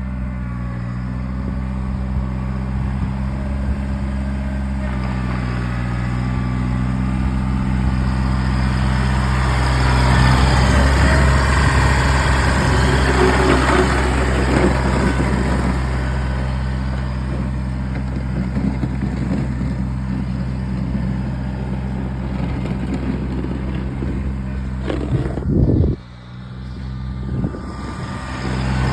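Kubota BX1800 compact tractor's three-cylinder diesel engine running steadily, louder and rougher for several seconds in the middle, with a brief sudden dip in the sound near the end.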